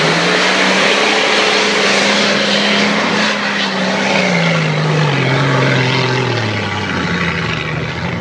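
Nissan Patrol Y60 turbodiesel engine working hard under load on a steep climb, held at high revs and then falling away in steps from about four seconds in.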